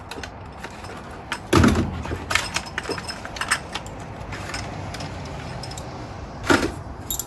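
New steel pushrods for a 5.7 Hemi clinking and rattling against each other as they are handled and sorted by length, with a louder clunk about a second and a half in and another near the end.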